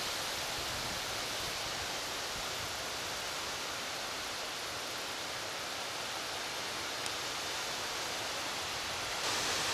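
Steady, even rustling hiss of wind moving through birch foliage, with no distinct events.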